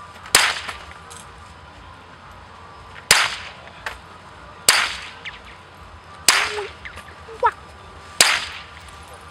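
Five suppressed pistol shots, fired one at a time at uneven gaps of about one and a half to two and a half seconds. Each is a sharp crack followed by a short echo. Two fainter clicks fall between the shots.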